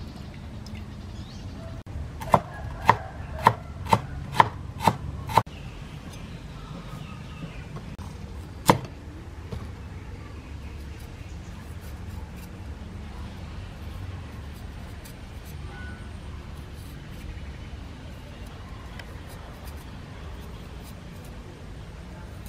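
A cleaver chopping on a wooden chopping board: seven sharp chops about two a second, and a single chop a few seconds later. After that, the quieter scrape of the cleaver's blade peeling the skin off a turmeric root.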